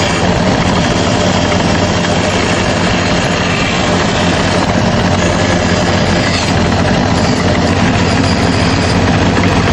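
A woodworking power tool running steadily, with a constant low hum under a wide hiss.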